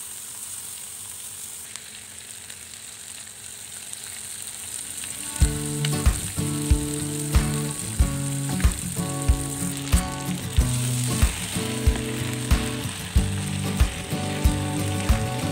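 Whole spice-basted chicken sizzling on a hot stovetop griddle pan, a steady hiss. About five seconds in, background music with a steady beat comes in and becomes the loudest sound.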